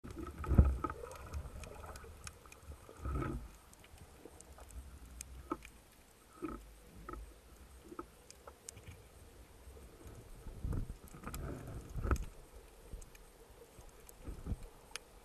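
Underwater sound heard through a camera housing on a speargun: several dull low thumps and water rushes as the gun and diver move, the loudest about half a second in, with many faint sharp clicks scattered throughout.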